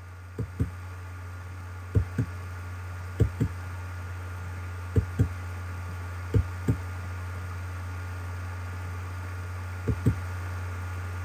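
Soft, low double knocks, two quick thumps at a time, repeating irregularly every one to two seconds over a steady low electrical hum.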